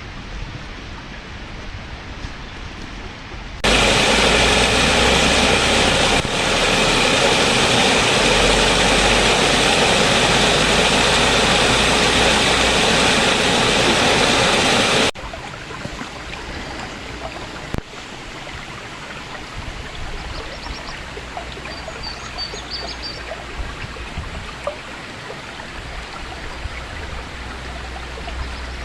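River water rushing steadily over a small waterfall (rumba). From about 4 s to 15 s the rush is much louder and fuller, and it switches in and out abruptly.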